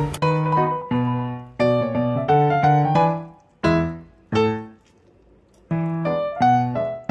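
Background music: a piano-style keyboard playing a gentle melody over chords. The notes are struck and left to fade, with a pause of about a second midway before the playing resumes.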